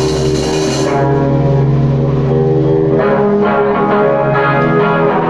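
Music of long, sustained ringing tones layered over a low drone, with a bright hiss washing over it for about the first second and new higher notes coming in about three seconds in.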